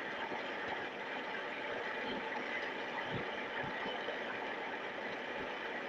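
Longwave radio receiver static: a steady hiss with a couple of faint crackles.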